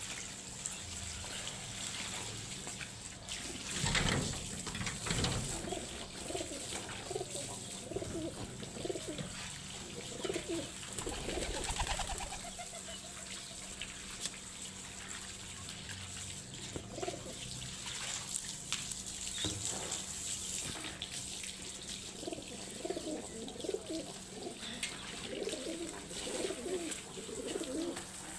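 Pigeons cooing again and again, with a few splashes of water from a bathing pigeon; the loudest splash comes about four seconds in.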